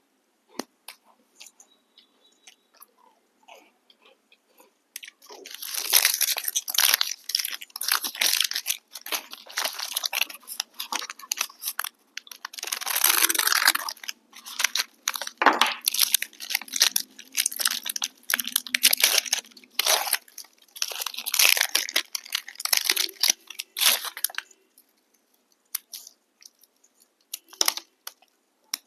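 A person biting and chewing a crunchy snack, with loud crisp crunches. It starts with a few faint clicks, becomes a dense run of crunching about five seconds in, and thins out to scattered crunches near the end.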